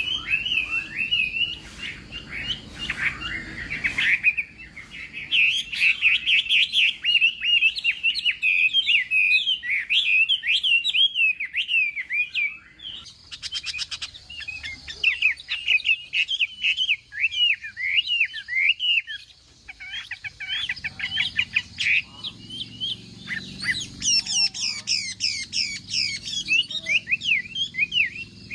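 Chinese hwamei singing its challenge song: a long run of fast, varied, rising and falling whistled phrases, with short breaks about halfway and two-thirds through.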